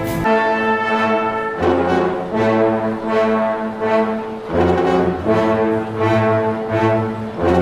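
Orchestral music led by a brass section, French horns and trombones playing held chords, a new chord coming about every second.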